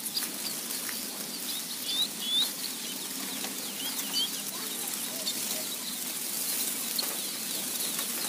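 Small birds chirping: many short, high, bending chirps, some in quick pairs, over a steady hiss.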